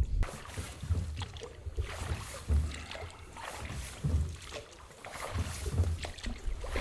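A small rowboat being rowed, with repeated low knocks of the oars working and water noise from the strokes, recurring about once a second.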